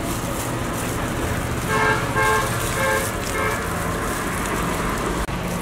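Vehicle horn tooting four short times, about two seconds in, over a steady hum of street traffic.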